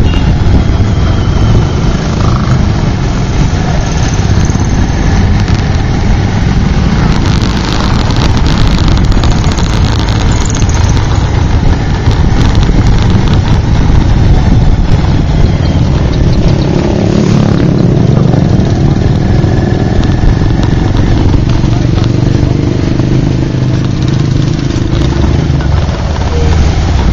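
Motorbike riding through slow, congested street traffic: its engine running under a loud, steady rumble of road and wind noise.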